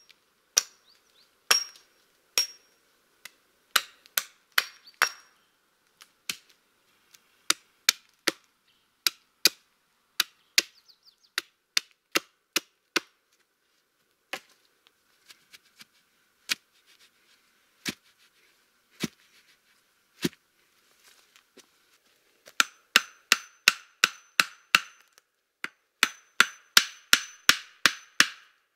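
Hatchet blows on wood, chopping and notching logs and poles: single sharp knocks at uneven intervals, then two quick runs of blows about four a second near the end.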